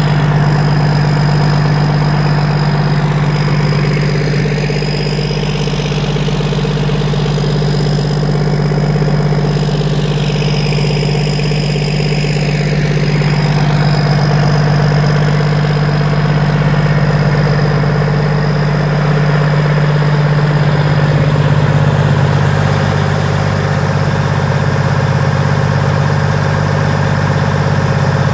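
Cummins N14 inline-six diesel engine running steadily as the power unit for two Gorman-Rupp 10-inch dewatering pumps, a loud, even drone throughout.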